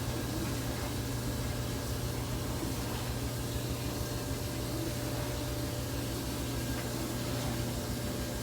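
Samsung clothes dryer running its first cycle, which burns off the protective coating: a steady low hum with an even rush of air from the drum fan.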